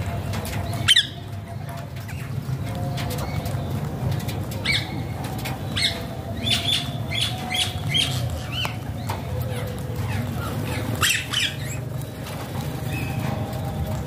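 Rose-ringed parakeets giving short, sharp squawks: one loud call about a second in, a quick run of four or five calls between six and seven and a half seconds, and another cluster near eleven seconds, over a steady low hum.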